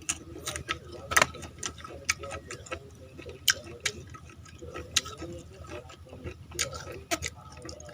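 About a dozen sharp clicks and light taps at irregular intervals, the kind made by hard objects knocking or scraping against each other.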